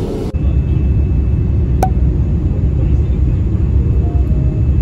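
Steady low rumble of a jet airliner's cabin, engine and airflow noise heard at a window seat on the descent, with one sharp click about two seconds in.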